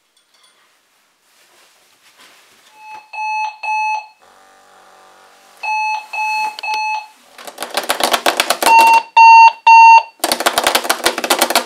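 Sonic Bomb alarm clock going off. Groups of three short, high-pitched beeps alternate with loud, rasping, rapidly pulsing buzzes, and the alarm gets louder as it goes on. A quieter low hum sits between the first two groups of beeps.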